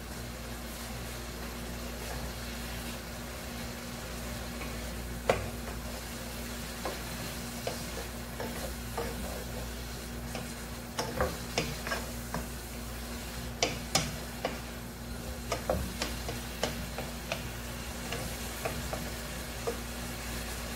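Wooden spoon stirring vegetables and shrimp in a nonstick pot over a low sizzle, with scattered clicks and knocks of the spoon against the pan, most of them from about 11 to 18 seconds in. A steady low hum runs underneath.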